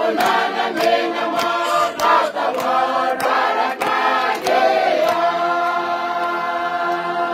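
A choir singing together in harmony, with sharp regular beats keeping time through the first five seconds or so. The choir then settles onto one long held chord.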